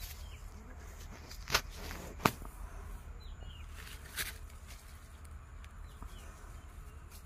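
Outdoor field ambience with a steady low rumble and faint bird chirps, broken by two sharp clicks about a second and a half and two seconds in, and a short crackle about four seconds in.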